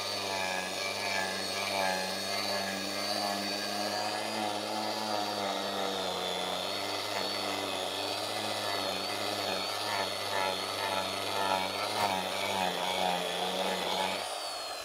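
Angle grinder fitted with a coarse tungsten-carbide shaping disc running and carving a hollow into a wooden board, its steady motor whine wavering slightly as the cutter bites into the wood. It stops shortly before the end.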